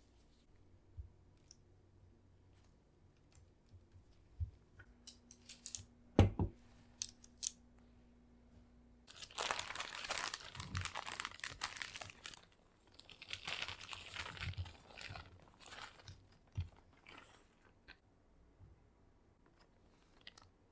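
Kitchen handling sounds while making cookies: scattered light clicks and one sharp knock about six seconds in, then two spells of crinkly rustling, each lasting a few seconds.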